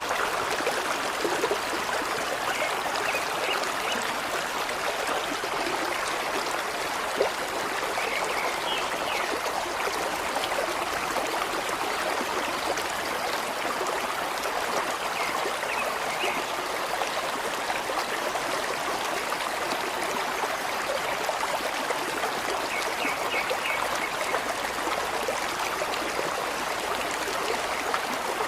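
Steady running water, like a stream trickling over stones, with a few faint short high calls around a quarter, a third, halfway and four-fifths of the way through.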